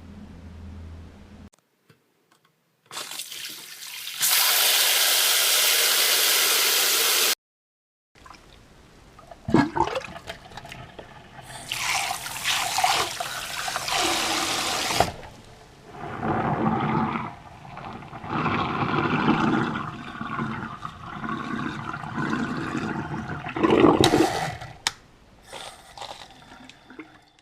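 Tap water running and splashing over remote control parts being washed, in several short segments that start and stop abruptly.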